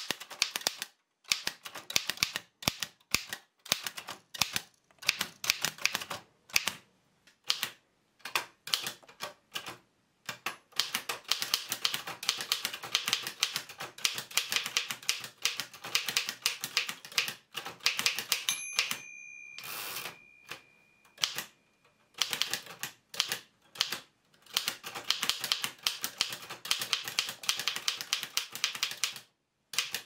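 1916 Oliver No. 9 typewriter being typed on: rapid clacking of its U-shaped typebars striking, in runs broken by short pauses. About two-thirds of the way through, the bell dings once and rings on while there is a brief sliding rush, the carriage being returned, then the typing resumes.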